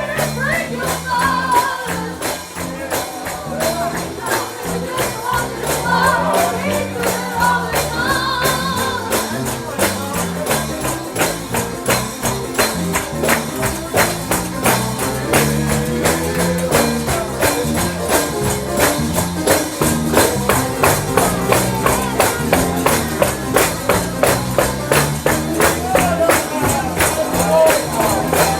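Gospel song with a steady tambourine beat of about four strikes a second, with singing over it in the first half.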